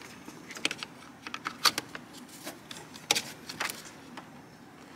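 Plastic wiring connector being handled and pushed onto a car's cooling fan control unit, making scattered sharp clicks and taps, about six of them.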